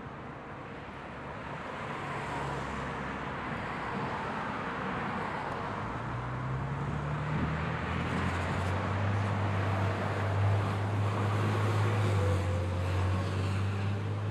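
Street traffic: cars going by with a steady hiss of tyre and road noise. About six seconds in, a low engine hum builds and holds, loudest past the middle, then eases near the end.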